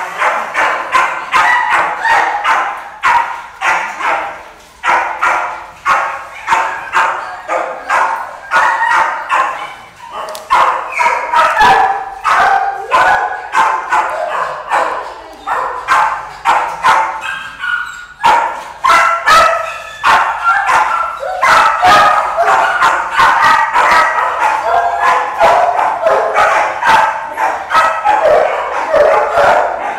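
Many dogs in a pound's kennels barking at once: a loud, unbroken din of overlapping barks.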